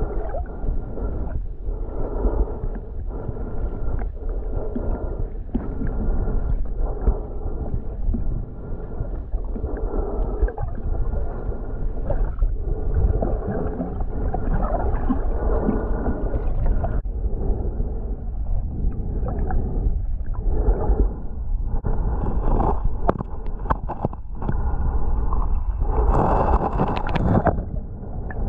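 Muffled underwater noise picked up by a submerged camera: a steady low rumble and sloshing of water, with the sound held mostly in the low range. Near the end it grows louder and brighter, with knocks and scrapes as rocks on the lakebed are moved by hand.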